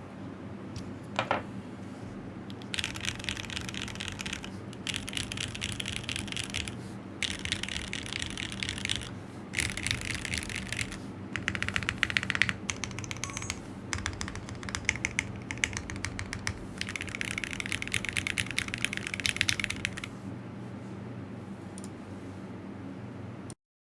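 Typing on a Geonworks Frog TKL mechanical keyboard with SP Star Meteor White linear switches on an aluminium plate and GMK keycaps: bursts of fast keystrokes with short pauses, ending about 20 seconds in. A steady low hum runs underneath.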